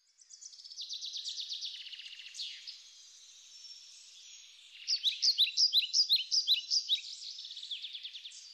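Birds chirping: a fast trill in the first couple of seconds, then from about five seconds in a run of loud, quick, falling chirps.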